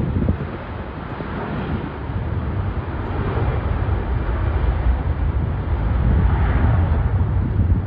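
Jet aircraft engine noise outdoors, a steady rush with deep rumble that grows louder and brighter about six seconds in, with wind buffeting the microphone.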